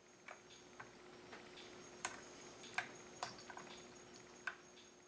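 Irregular light metallic clicks and ticks of a chainsaw piston and its wrist-pin circlip being handled and picked at, the sharpest about two and three seconds in, over a faint steady hum.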